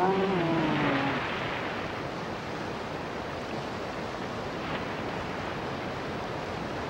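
Steady rush of white-water river rapids.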